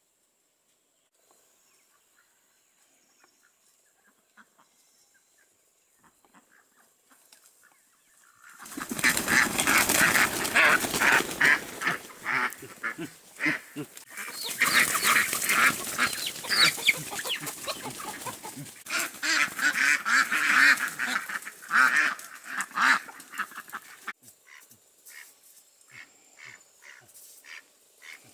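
Domestic ducks quacking loudly and in a frantic jumble, with wing flapping, as one is chased and grabbed; the racket starts about a third of the way in. Near the end it drops to a single duck quacking more quietly, about twice a second.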